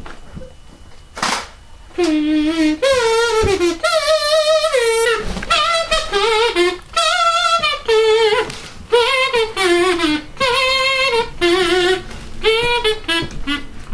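A kazoo playing a wavering, voice-like tune of held and sliding notes, starting about two seconds in.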